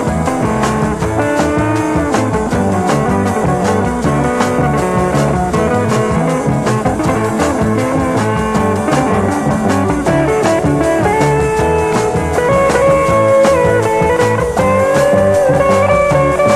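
Instrumental break of a 1968 Italian beat-group record with no singing: a steady drum beat under held melody lines, with a long sustained note coming in near the end.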